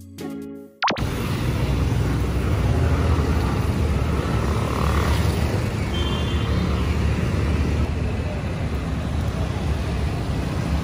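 Guitar music ends about a second in, giving way to busy street traffic: motorcycles, scooters and a small truck passing with a steady low engine rumble.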